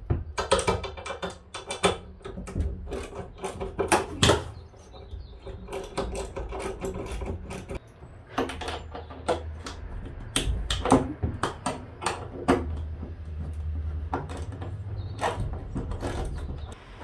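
Irregular clicks and short metallic rattles of a hand tool working on the fixings of a ceiling-mounted van air-conditioning unit.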